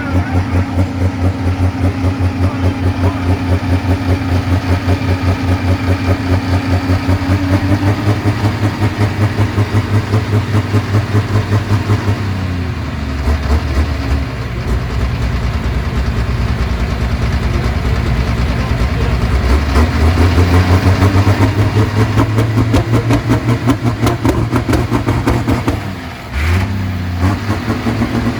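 Super stock diesel pulling tractor engine turning over and firing in an even pulsing beat, a few pulses a second, during a hard start on ether with its injection pump stuck open. The pulsing sags briefly near the middle and again near the end.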